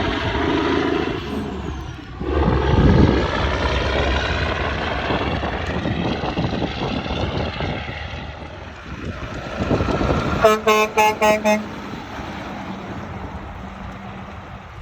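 Heavy traffic passing close by, with the rush of trucks going past. About ten seconds in, a vehicle horn gives about five quick toots in a little over a second, then the traffic noise dies down.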